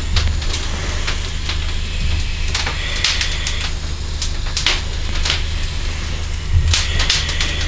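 Fire burning inside a steel flashover training container: irregular sharp crackles and pops over a steady low rumble.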